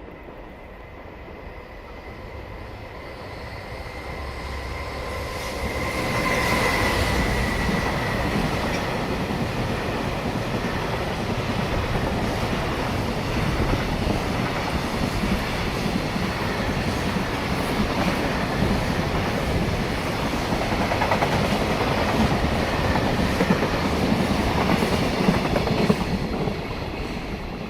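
JR Freight EF210 electric locomotive hauling a long train of container wagons, passing at speed. The sound builds over the first few seconds as the train approaches, with a high steady tone that drops away as the locomotive goes by. A loud steady rumble of wheels clattering over rail joints follows as the wagons pass, easing off near the end.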